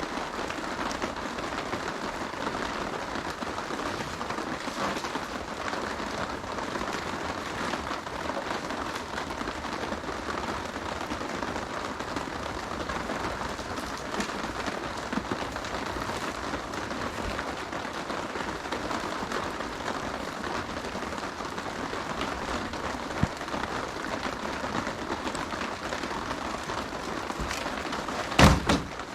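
Steady heavy rain falling, an even hiss of drops. Near the end a single short, loud thump.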